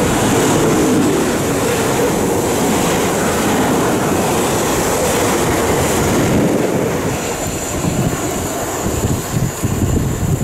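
Class 450 Desiro electric multiple unit running through the platform: a steady rumble of wheels on rail with electric traction hum, falling away after about seven seconds as the train recedes, with gusts of wind on the microphone near the end.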